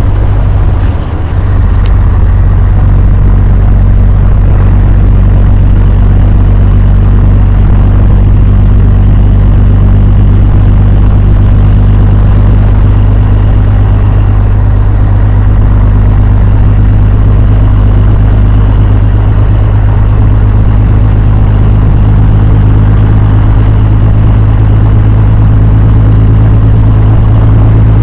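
Loud, steady low rumble of a vehicle driving on a road through a sandstorm, with a rushing noise over it.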